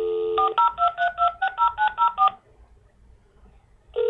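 A telephone dial tone cuts off, and about ten touch-tone keypad beeps follow in quick succession as a phone number is dialed. After a short pause, a steady ringback tone starts near the end: the call is going through.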